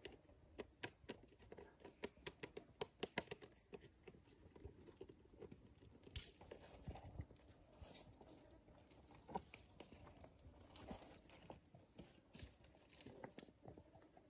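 Faint, scattered clicks and taps on stone, thickest in the first few seconds: a Komodo dragon's clawed feet stepping over rocks and pebbles.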